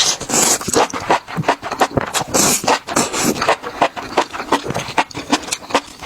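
Close-miked eating sounds: rapid crunching and crackling of food being chewed, many sharp crunches a second.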